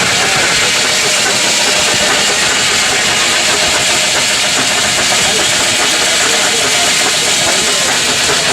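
Machinery running steadily with a loud, even hiss.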